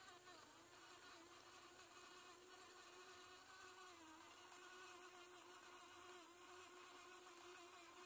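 Faint, steady whine of a homemade remote-controlled helmet robot's small electric drive motors as it drives along, dipping in pitch briefly about four seconds in.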